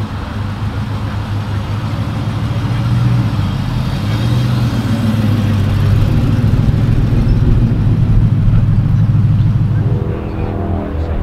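A TVR's V8 engine running with a strong, low engine note. It swells as the car pulls away across the grass and passes close by, then drops away near the end.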